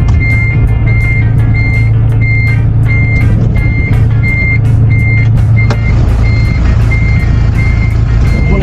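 A truck's reversing alarm beeping steadily, about two short high beeps a second, over the loud steady running of the truck's engine, heard from inside the cab.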